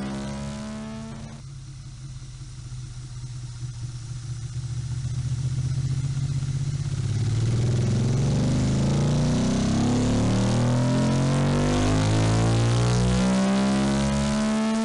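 Motorcycle engine revving: it drops to a lower, quieter run for a few seconds, then climbs in pitch and loudness and holds loud over the second half.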